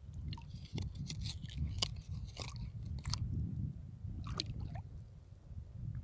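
Sand and shell grit crunching and scraping underwater as the seabed is dug out to reach a sea anemone that has retracted beneath the sand, over a low water rumble. The crunches come thick in the first three seconds and once more a little after four seconds.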